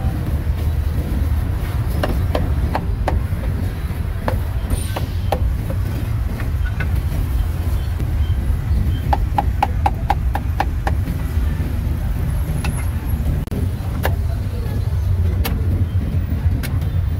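Roadside street ambience: a steady low rumble of road traffic, with scattered sharp knocks and a quick run of about eight clicks about nine seconds in.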